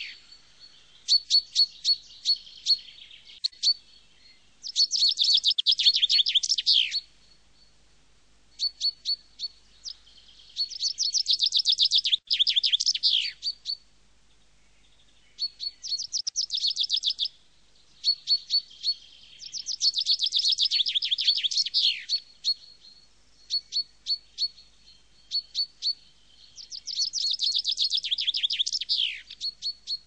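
A songbird singing the same short, high phrase about five times, roughly every five or six seconds: a run of quick repeated notes that thickens into a trill and ends in a falling flourish. Single sharp notes fill the gaps between phrases.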